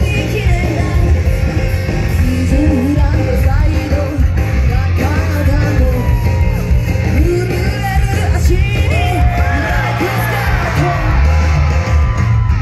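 Live J-pop performance: women's voices singing into microphones over amplified backing music with a heavy bass line, heard through the stage speakers.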